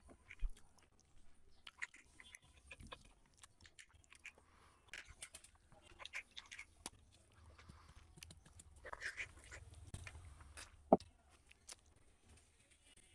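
Close-up eating sounds: chewing with mouth smacks and clicks, and a hand squishing rice into chicken curry on the plate. There are scattered short clicks throughout; a sharp one comes just after the start, and the loudest about eleven seconds in.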